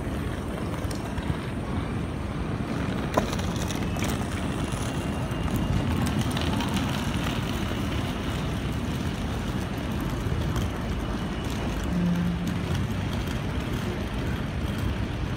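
Empty open box wagons of a freight train rolling past, a steady rumble of steel wheels on the rails with an occasional sharp click, one about three seconds in.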